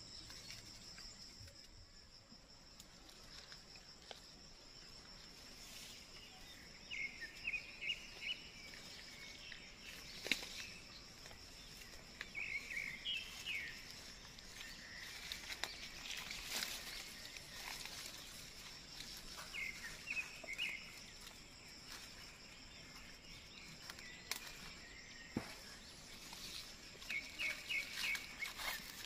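Steady high-pitched drone of insects in vegetation. Over it, four times, comes a short call of four or five quick chirping notes, about six seconds apart, with a few sharp snaps or clicks in between.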